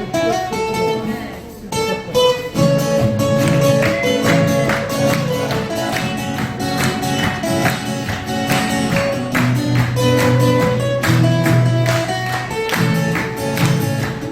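Acoustic guitars playing an instrumental passage: picked single notes at first, then fuller strummed chords join about two and a half seconds in.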